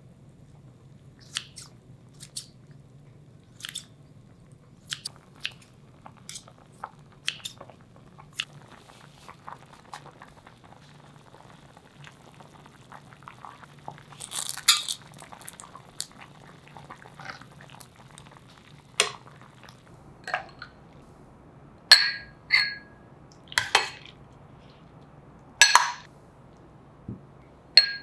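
Kitchen work: scattered light clicks and knocks of utensils and dishes, with several louder ringing clinks of dishes in the last third, over a faint low steady hum.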